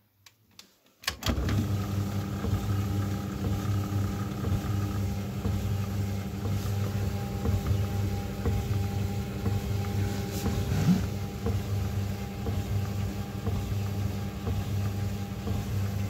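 Tumble dryer starting with a click about a second in, then running with a steady low motor hum and drum rumble that pulses unevenly as the drum turns.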